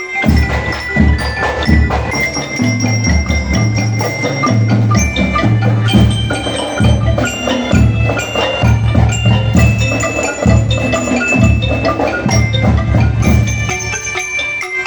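Percussion ensemble music: a melody on ringing metal mallet instruments over a repeated low drum beat.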